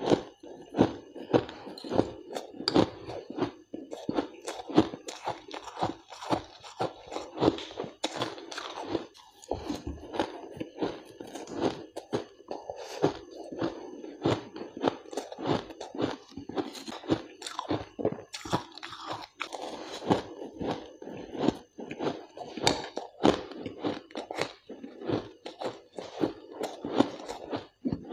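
Shaved ice being chewed: a continuous, uneven run of crisp crunches, some much louder than others.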